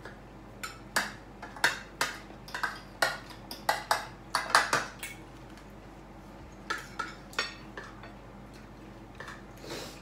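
Forks and mussel shells clinking against plates and bowls during a meal of mussels: a quick run of sharp clinks for about five seconds, then a few scattered ones.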